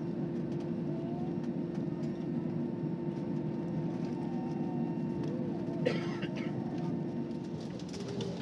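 Steady drone of an airliner cabin while the aircraft taxis, with a constant hum tone running through it. Faint passenger voices can be heard, and there is a brief clatter about six seconds in.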